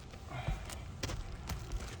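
A short scrape and a few sharp clicks and knocks of work on asphalt roof shingles as they are pried up, over a low rumble of wind on the microphone.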